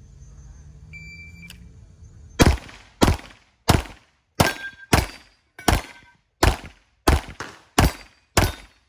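Electronic shot-timer start beep, then about eleven Glock pistol shots fired at an uneven pace of roughly one or two a second, each with a short ringing echo.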